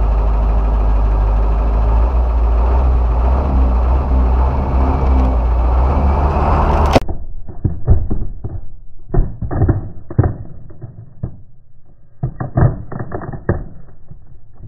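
Truck engine running steadily close by. About seven seconds in, the sound turns suddenly duller and muffled, and a run of sharp cracks and knocks follows as the truck's rear tyre rolls onto a wooden board and crushes a motorcycle helmet's shell beneath it.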